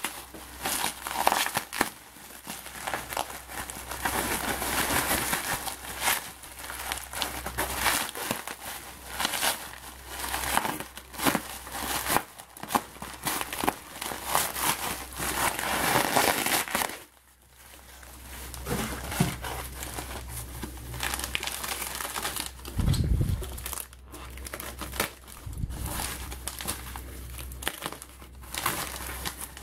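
Bubble wrap and packing paper crinkling and rustling as they are pulled off a package by hand, with a short lull about halfway through.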